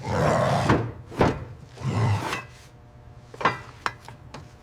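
A few short scraping rushes followed by several sharp knocks and clicks, like things being handled and struck.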